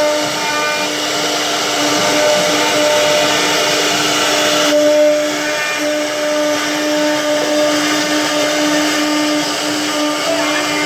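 CNC machine running steadily, its motor giving a constant whine over a broad hiss.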